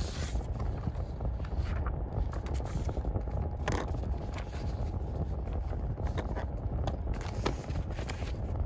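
Sheets of paper being handled on a desk: shuffled, slid and lifted, with a few short rustles over a steady low rumble.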